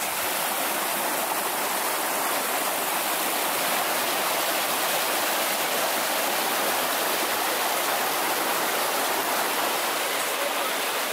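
Shallow, rocky mountain stream rushing over stones and cobbles in a steady white-water rush.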